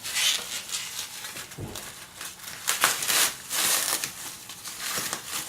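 Packaging crinkling and rustling in irregular bursts as a lock is handled out of its wrapping, loudest about three seconds in.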